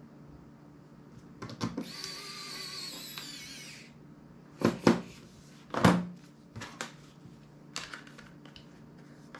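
Small electric precision screwdriver whirring for about two seconds with a wavering pitch, followed by several sharp clicks of the phone's plastic housing and small tools being handled.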